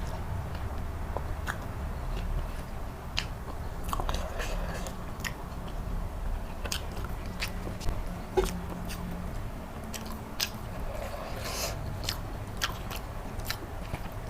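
Close-miked eating of egg curry: chewing with scattered sharp, wet mouth clicks and smacks at irregular intervals, over a low steady hum.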